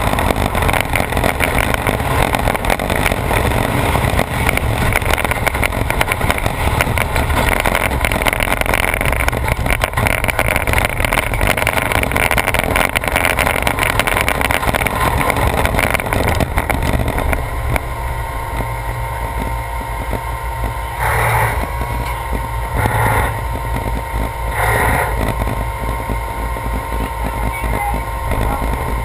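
A vehicle engine running steadily with a loud rumble, easing off about seventeen seconds in, followed by three short blips about two seconds apart.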